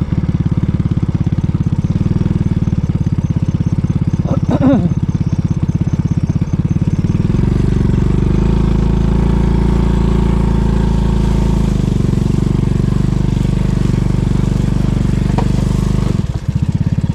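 Honda Biz 100 motorcycle's small single-cylinder four-stroke engine running steadily while the bike is ridden, its note changing at about 7 seconds and again near the end.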